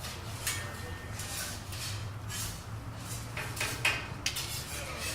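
Scattered knocks and clatter of cooking trays and utensils over a steady low hum.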